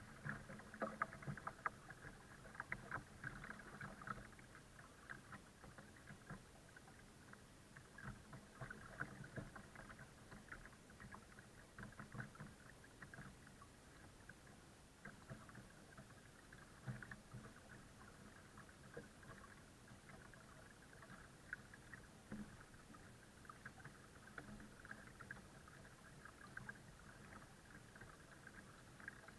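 Faint water lapping and trickling against the hull of a folding kayak as it is towed slowly along, heard as an irregular run of small splashes and crackles.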